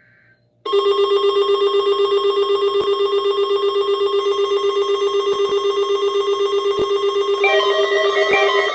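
Electronic emergency alert tone of a weather radio weekly test: a loud, rapidly pulsing buzz that starts abruptly under a second in and holds one pitch. Near the end a second alarm sound joins it, tones stepping up and down in a repeating pattern.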